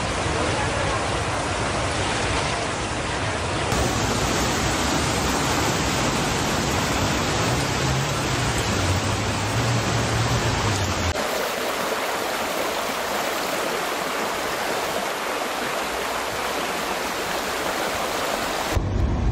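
Floodwater rushing and splashing as a loud, steady noise, changing abruptly about 4 and 11 seconds in.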